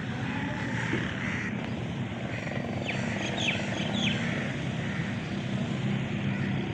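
A steady low engine rumble with a constant hum, and a few short, high, falling bird chirps about three seconds in.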